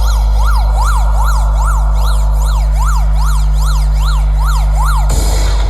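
Siren sound effect rising and falling quickly, about two and a half sweeps a second, over a heavy, steady bass drone, played very loud through a DJ sound system during a sound check. The siren stops near the end and the bass drops away.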